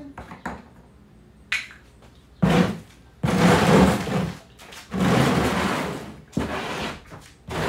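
An oil drain pan and other gear being handled and moved on a concrete garage floor: a short clink about one and a half seconds in, then four drawn-out scraping, rustling noises.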